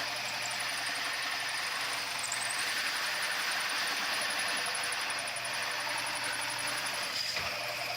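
Power drill boring a hole through plywood: the motor runs steadily under load with a high whine, dipping briefly about seven seconds in.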